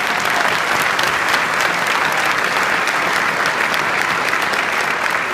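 Large audience clapping steadily, a dense patter of many hands.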